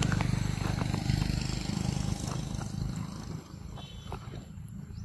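Engine of a passing vehicle running close by, then fading away over about three seconds, with a few faint clicks over it.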